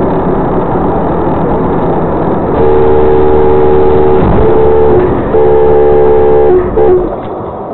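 Vehicle horn sounding in two long held blasts, each around two seconds, then a brief toot, over steady traffic and engine noise.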